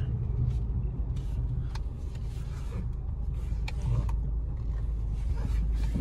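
Low steady rumble of a 2010 Honda CR-V's engine and tyres, heard inside the cabin while it drives slowly, with a couple of faint clicks.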